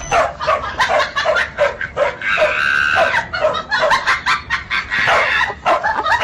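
A dog barking in a quick run of short barks, about three a second, with one longer drawn-out call a little after two seconds in.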